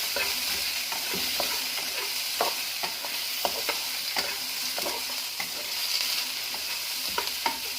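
Onions sautéing in hot oil in a pan, a steady sizzle, with a utensil stirring and scraping against the pan in short strokes about every half second.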